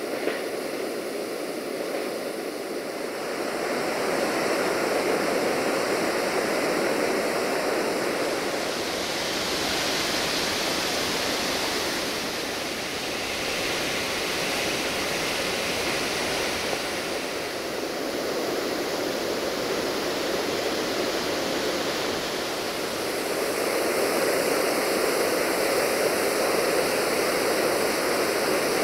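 Waterfall rushing steadily into a river. The sound swells and shifts in tone a few times but never stops.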